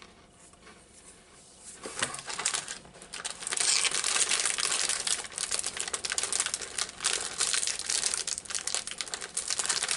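A shiny plastic snack wrapper crinkling and crackling in the hands as it is handled and folded. The sound starts about two seconds in and then goes on steadily.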